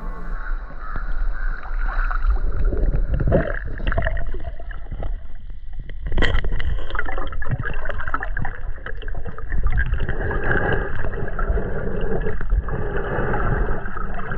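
Muffled water sound picked up by a camera in a waterproof housing, partly underwater: sloshing and gurgling, with a sharp knock about six seconds in.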